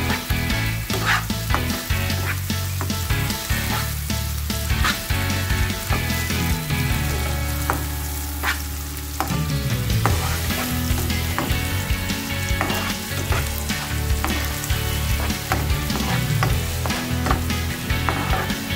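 Chopped onions sizzling steadily in hot oil in a nonstick frying pan, while a spatula stirs them and scrapes the pan in frequent short strokes.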